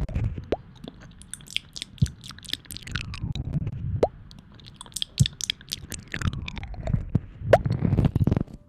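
Close-up wet mouth sounds at an ASMR microphone: a dense string of sharp wet clicks and pops with a few squeaky downward slides and soft low rubbing thuds.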